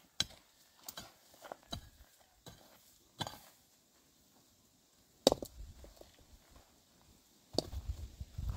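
A few scattered light knocks and clicks, the loudest about five seconds in, with a low rumble starting near the end.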